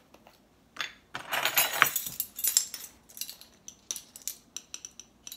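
Metal lid unscrewed from a glass salt shaker with a grating scrape, then a run of light clicks and metallic clinks from a metal measuring spoon as salt is measured out.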